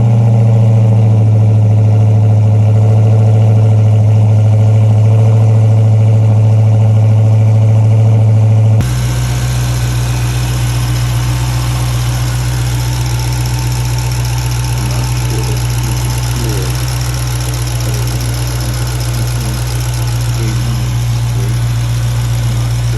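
Dodge Hellcat's supercharged 6.2-litre HEMI V8 idling steadily just after start-up. About nine seconds in the sound changes suddenly, dropping a little in level, then runs on steady; the owner hears an unexplained noise in it and is asking what causes it.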